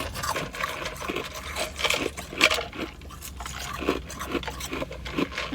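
Ice being chewed: irregular crunches, the loudest about two and a half seconds in.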